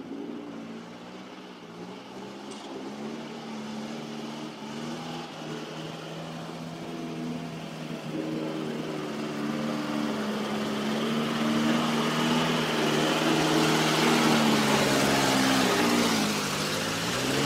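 Off-road truck engine running hard under load through deep mud, a steady drone that grows louder through the second half, with a rising hiss of churned mud and water splashing. Near the end the engine pitch drops briefly and climbs again.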